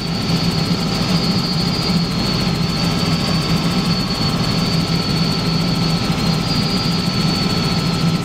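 Helicopter in flight heard from inside the cabin: a steady drone of rotor and engine with a constant high-pitched whine above it.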